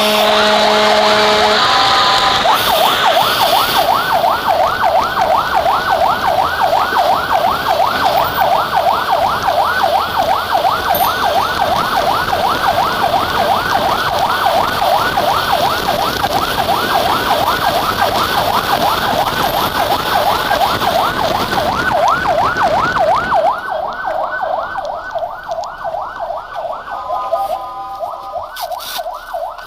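Fire engine siren in fast yelp mode, sweeping up and down about four times a second over engine and road noise. It opens with steady horn-like tones and a short rising wail. Near the end the road noise drops and steady tones sound again under the siren.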